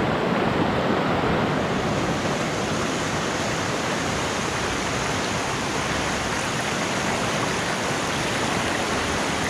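Fast-flowing mountain river running high over rocky rapids, a steady, even rush of white water.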